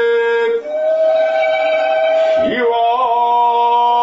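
Male shigin chanting: long drawn-out held notes. The pitch steps up about half a second in, breaks briefly about two and a half seconds in, then settles on a new sustained note with a slight waver.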